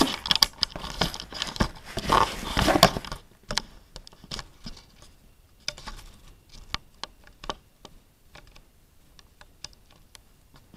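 Close handling noise as the camera is moved about: rustling and crinkling for the first three seconds, then scattered light taps and clicks.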